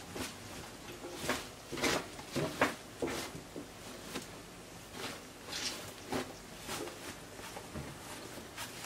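A cotton Ankara print skirt with a crinoline-lined hem being handled and turned on a table: irregular rustles and brushes of fabric.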